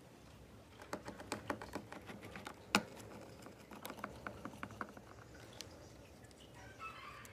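Small sharp clicks and taps of a screwdriver and loose metal parts on the opened laptop's dirty logic board and hinge screws, with one louder click about three seconds in. A chicken calls briefly near the end.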